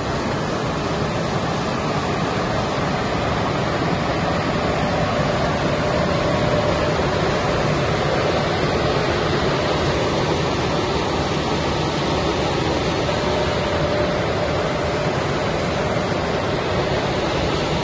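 JC-250 EPE foam sheet extrusion line running: an even rushing noise from its air blowers and drive motors, with a faint steady hum underneath.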